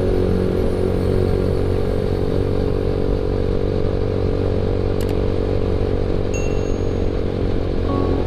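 Yamaha MX King motorcycle being ridden at a steady pace. Its engine drone runs evenly under wind and road noise, with a brief click about five seconds in.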